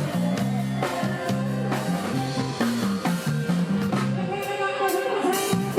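Live Isan pop band music played loud over a sound-truck PA: drum kit and a repeating bass line at a steady beat, with a singer's voice coming in about four seconds in.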